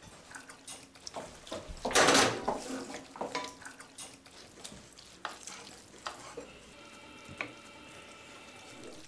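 Kitchen prep sounds: a kitchen knife chopping parsley on a cutting board and a wooden spoon working spaghetti in a metal pan, heard as scattered knocks and clinks. A louder rushing noise comes about two seconds in.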